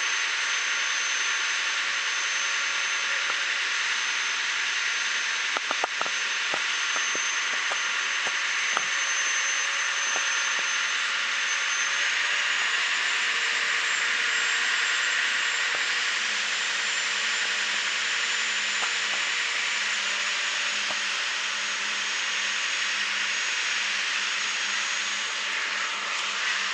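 Steady rushing noise on the deck of a moving passenger ferry, from its engine, the water and the wind, with a thin high whine that steps up a little in pitch about twelve seconds in. A few faint handling clicks.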